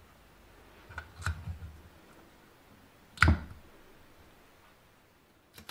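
Adhesive tape being pulled from a desk tape dispenser and torn off, heard as a few short clicks and knocks: a small cluster about a second in, a sharper, louder knock about three seconds in, and a brief click at the end.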